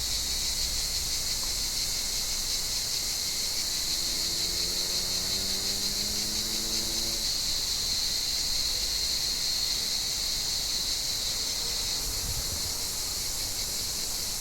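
Chorus of cicadas buzzing steadily in high-pitched unbroken shrill. From about four to seven seconds in, a faint low hum rises slowly in pitch underneath it.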